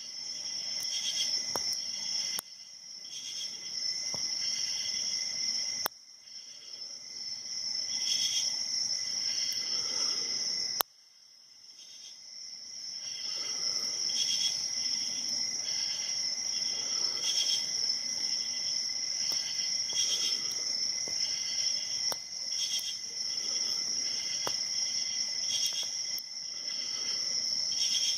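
Steady high-pitched insect chirping, like crickets, with a few faint clicks. The sound cuts out abruptly three times and swells back in.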